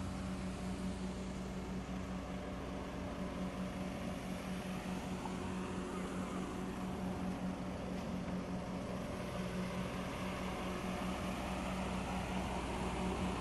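Vintage Ferguson tractor engine running at a steady speed with an even, throbbing beat, a little louder near the end.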